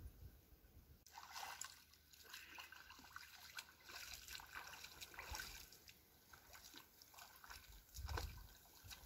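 Faint trickling and light splashing of river water at a pebble shore, in short, irregular ticks.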